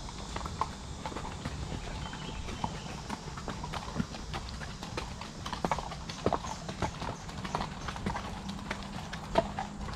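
Horses walking on a dirt trail: an uneven clip-clop of hoofbeats, a few steps a second, over a steady low rumble.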